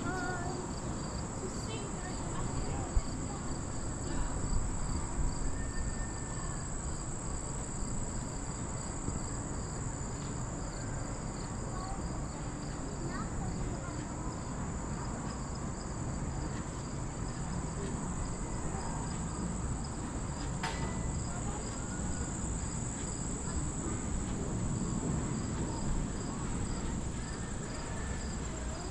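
Chorus of insects in late-summer woods: a steady high shrill with an evenly pulsing chirp below it, over a low rumble. A single sharp click about three seconds in.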